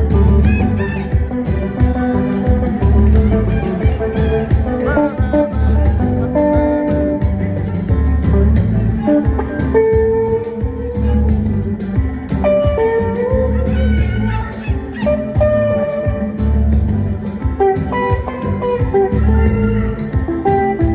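Live band playing instrumental music with a heavy bass line, a steady drum beat and melodic lead lines that bend in pitch.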